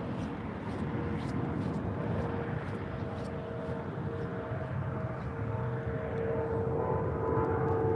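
Steady drone of a distant engine, with a humming tone that swells and gains higher overtones near the end.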